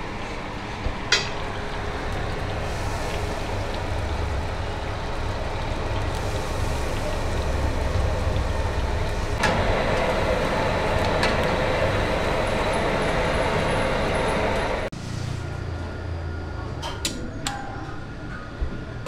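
Steady low rumble of a busy kitchen. About nine seconds in, hot oil crackles and sizzles as vegetable Manchurian balls deep-fry in a kadai over a gas flame, stopping abruptly about five seconds later. Near the end there are a few light clicks and a sharp knock on a wooden chopping block.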